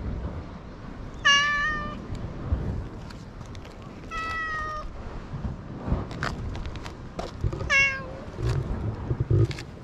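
Domestic cat meowing three times, short calls about three seconds apart.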